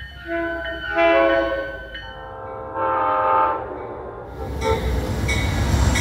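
Locomotive air horns sounding a chord in several separate blasts: a short one, a louder longer one about a second in, and another about three seconds in. In the second half a locomotive passes close with a heavy low rumble while its horn sounds again.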